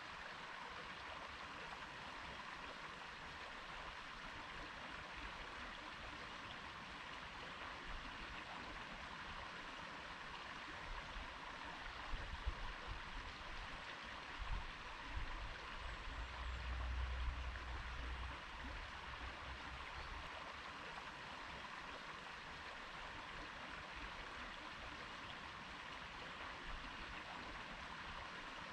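Stream water flowing steadily, with a low rumble that comes and goes about halfway through.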